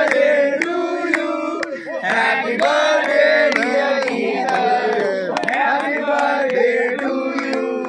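Music: a sung melody of long held notes with gliding ornaments, over a run of sharp percussive hits.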